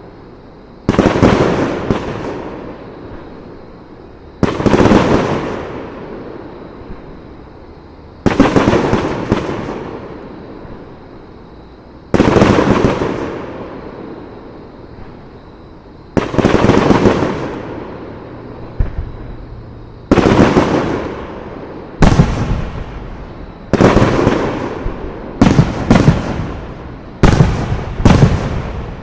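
Aerial fireworks shells bursting with loud booms, each trailing off in a rumbling echo. They come about every four seconds at first, then quicken into closely spaced bursts, some in pairs, over the last several seconds.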